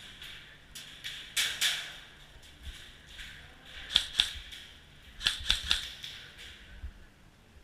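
Airsoft guns firing single shots in short groups: two sharp cracks about a second and a half in, two more around four seconds, and three quick ones near five and a half seconds.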